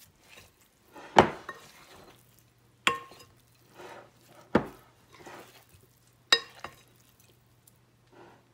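Raw seasoned pork cubes tossed by hand in a glass mixing bowl: soft squishing of meat and about five sharp knocks and clinks against the glass, some ringing briefly.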